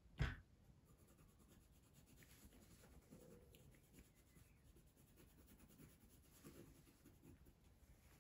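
Faint scratching of a coloured pencil shading on paper, with one sharp knock right at the start.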